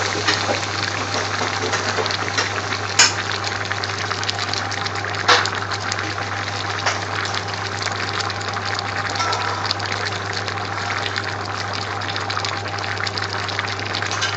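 Pan of chopped onions, carrots and peppers in oil boiling steadily, a dense bubbling crackle with two louder pops about three and five seconds in, over a low steady hum. The onions are slowly melting down at the start of a long boil for curry base gravy.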